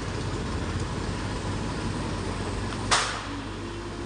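Steady mechanical hum with a low buzz, like a running fan, and one sharp plastic click about three seconds in as the headphone earcup is handled.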